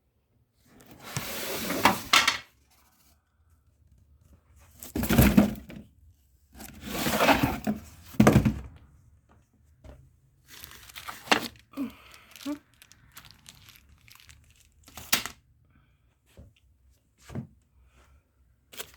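Packaging being torn and crinkled in several bursts of a second or two, with a few short knocks in between, as the appliance is unboxed.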